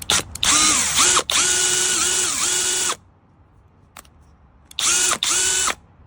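FADAKWALT 12V cordless drill running in trigger bursts: a whine of about two and a half seconds with brief breaks and dips in pitch, then a second, shorter run of about a second near the end.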